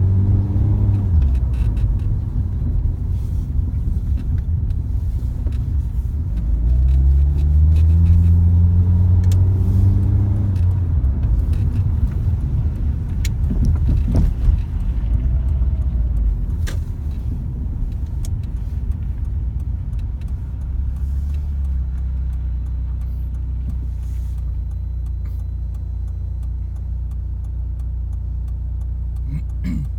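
A car being driven, its engine rising in pitch as it accelerates, over a steady low road rumble. A few sharp knocks come from the suspension about halfway through, the knock being shown with SS20 Gold shock absorbers fitted.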